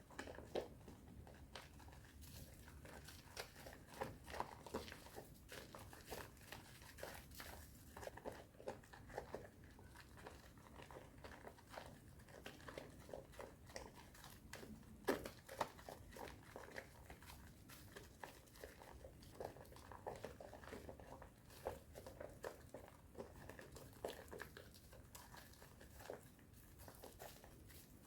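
Thick soap lather with powder mixed in, being worked: faint, irregular wet squishing and crackling of the foam.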